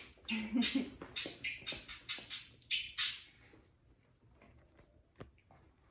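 Puppy playing rough with a plush toy: a quick run of short scuffling and slapping noises, dying away after about three seconds to a few faint ticks.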